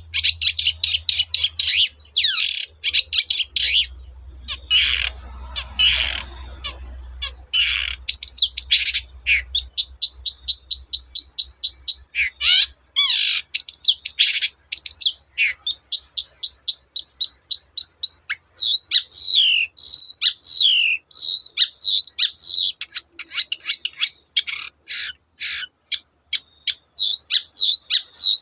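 Long-tailed shrike (cendet) singing a loud, fast, varied song of short high chattering notes and rapid trills, with downward-slurred whistles in the later part.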